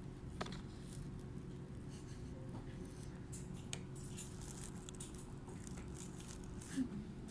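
Quiet room tone: a steady low hum with faint scattered clicks and rustles, and a brief pitched sound near the end.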